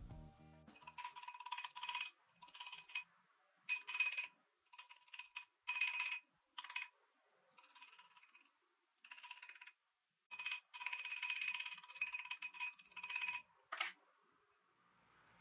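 Runs of quick, light hammer taps on a wire ring fitted over a steel ring mandrel, the mandrel ringing with a clear metallic tone under each run. There are about a dozen short runs with brief pauses between them, as the ring is shaped and worked up to size on the mandrel.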